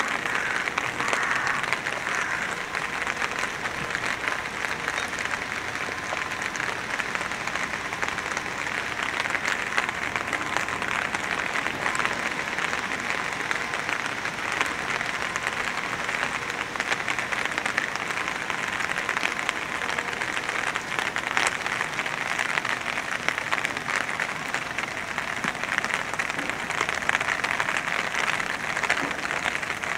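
Steady rain falling, a dense even patter of many small drops.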